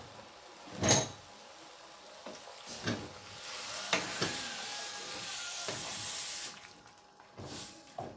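Cooking sounds: a sharp metallic clink about a second in, then about four seconds of hissing or sizzling from a pot, with a few knocks of utensils.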